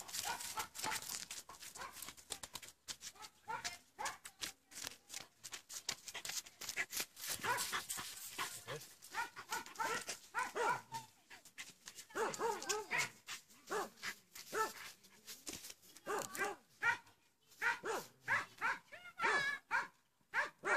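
A dog barking repeatedly in short runs, most of them in the second half.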